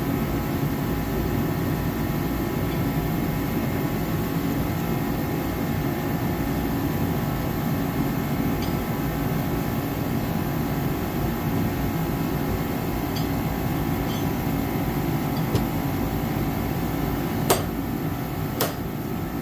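Garage heater running with a steady hum and whir, with two sharp clicks near the end.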